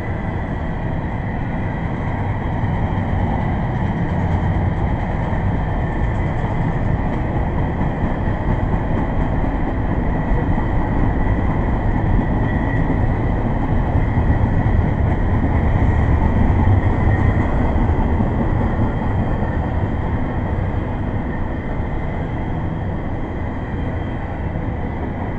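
Double-stack intermodal freight train rolling past: steel wheels on the rails make a steady rumble with a thin high ring over it. The noise swells partway through and eases toward the end as the last cars go by.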